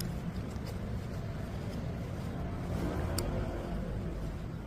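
Low, steady rumble of street background noise, with a couple of faint clicks, the clearest about three seconds in.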